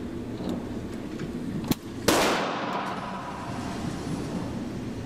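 Two gunshots: a short sharp crack about a second and a half in, then a louder shot a moment later that rings on with a long echo.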